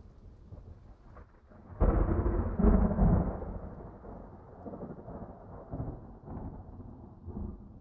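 Thunder: a low rumble, then a sudden loud clap about two seconds in that rolls on and slowly dies away in uneven rumbles.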